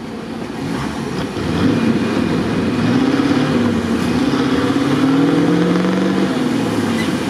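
Off-road vehicle engine revving hard under heavy load, its pitch rising and wavering, while it strains to pull a vehicle stuck fast in mud.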